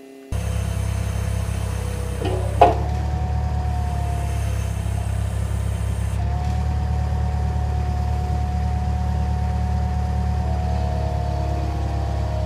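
Bobcat skid-steer loader's engine running steadily while its loader lifts a heavy load, with a steady whine above the engine hum. A single sharp clank sounds about two and a half seconds in.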